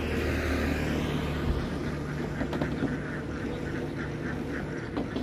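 A crowded flock of ducks quacking continuously, many short overlapping calls from birds packed into a truck's slatted cages.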